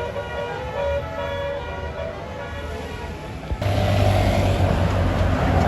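Tour bus telolet basuri horn playing a melody of held notes that step in pitch. About three and a half seconds in, the sound cuts abruptly to a louder steady bus engine with road noise.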